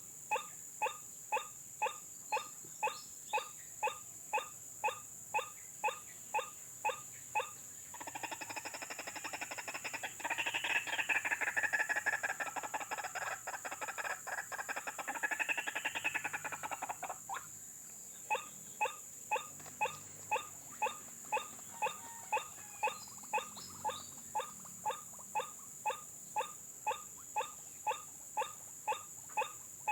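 White-breasted waterhen calls: a repeated 'kwak' about twice a second, broken about a third of the way in by a louder, rapid chattering stretch of about nine seconds, then back to the steady repeated call. A steady high whine runs underneath.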